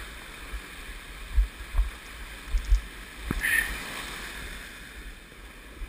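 Surf washing on the shore under a steady hiss, with several low thumps of wind and buffeting on the microphone, the strongest about one and a half and two and a half seconds in.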